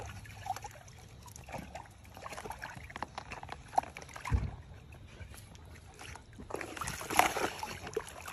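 A large dog pawing and digging at water in a plastic storage tub, with irregular sloshing, splashing and knocks against the plastic. There is a low thump about halfway through and a louder splash near the end.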